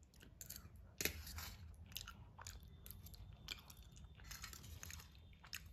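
A person chewing a mouthful of cheesy pasta close to the microphone: faint, irregular mouth clicks and smacks.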